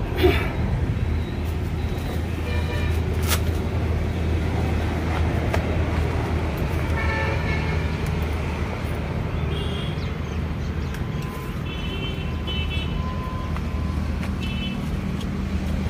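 Steady low hum of distant road traffic, with short high-pitched tones now and then and a sharp click about three seconds in.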